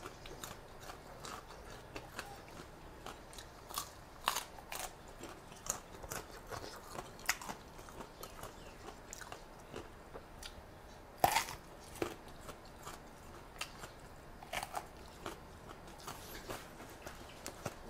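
Close-miked chewing and crunching of crisp raw vegetables, with scattered sharp bites; the loudest crunch comes about eleven seconds in.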